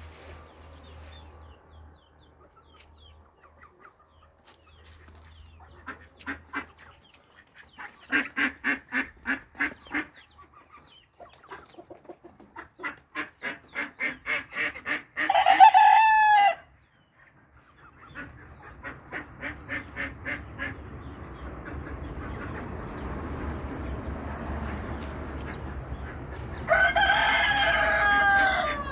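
Chickens clucking in quick rhythmic runs, and a rooster crowing twice: once about halfway through and again near the end.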